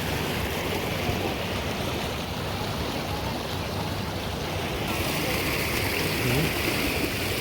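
River water flowing in a steady rush. About five seconds in, a steady higher hiss joins it.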